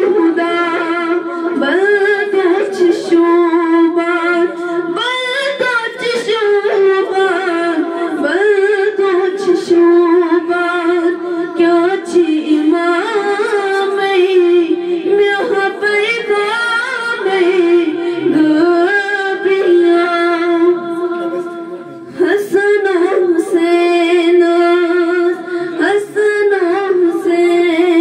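A young woman singing a devotional manqabat unaccompanied into a microphone, holding long ornamented notes with a short pause about three-quarters of the way through.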